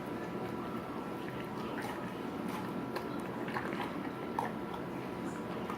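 Dog chewing and biting into watermelon: scattered soft wet clicks and crunches.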